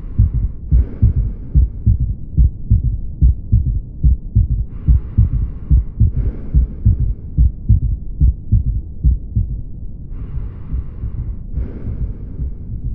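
Recorded human heart sounds: a regular run of low thuds in which each normal pair of heart sounds is followed right away by an extra faint third heart sound (S3), giving a three-beat gallop rhythm. Softer hissing passages come and go in pairs three times over the beats.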